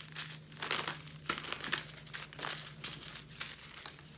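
Small plastic packs of square resin diamond-painting drills being handled and shuffled, crinkling in irregular bursts, loudest about a second in.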